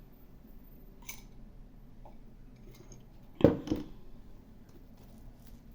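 Quiet room with a faint click about a second in, then a sharp clack about three and a half seconds in, followed quickly by a smaller one: objects being handled on a table.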